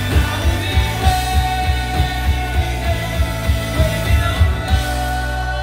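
Live rock band playing: electric guitars and bass over a drum kit keeping a steady beat of about four hits a second. The drums stop near the end, leaving the guitar chords ringing.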